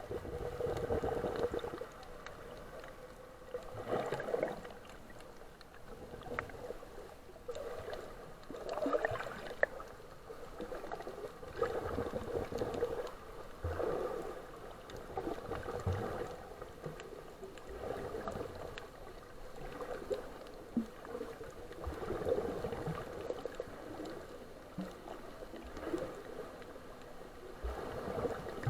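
Sea water sloshing and gurgling, swelling in surges about every two seconds.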